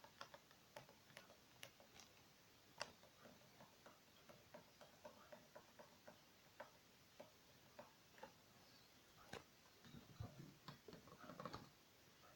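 Faint, irregular clicks and light taps, a few a second, with a denser cluster of duller knocks near the end.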